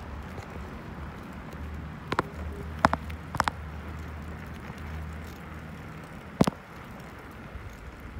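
Bicycle rolling over concrete pavement: a steady low rumble of tyres and wind, broken by a few sharp knocks and rattles, a cluster around two to three and a half seconds in and a loud one about six and a half seconds in.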